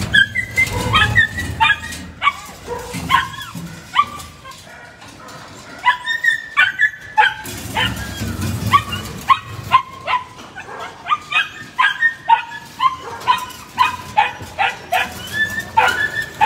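Several caged dogs barking and yelping over and over, short high calls coming several a second at times. A low rumble sits under them near the start and again about eight seconds in.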